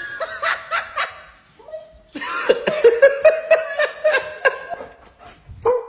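A person laughing in two bouts of quick, pulsing laughs, the second longer and louder.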